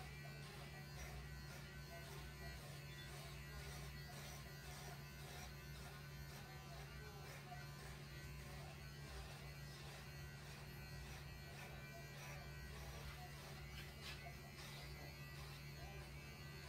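Electric pet hair clippers running with a faint, steady buzz while a cat's coat is shaved short.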